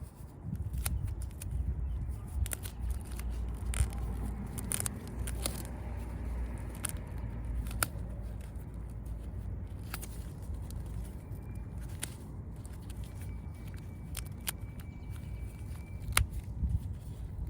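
Hand work on the truck's clearance-light parts: scattered sharp clicks and light scraping over a steady low rumble.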